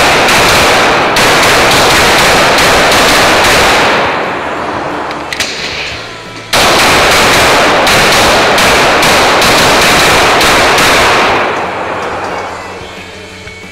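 Rapid 9 mm pistol fire from a Glock 19 in an indoor range, loud and echoing: a fast string of shots, a pause of about two seconds, then a second fast string that tails off near the end.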